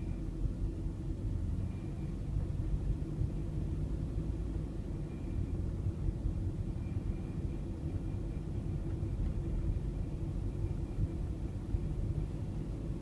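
Toyota ZRR70W minivan's 2.0-litre four-cylinder engine running steadily at about 1400–1500 rpm with a buzzing rattle ("biri-biri"), an abnormal noise that shows up only around that engine speed.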